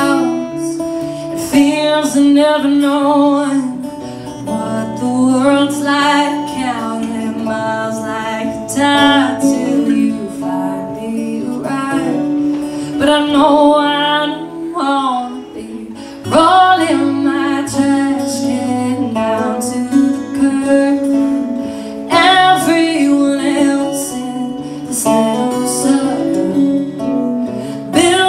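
Live acoustic duo: a woman singing a slow song over two acoustic guitars played together.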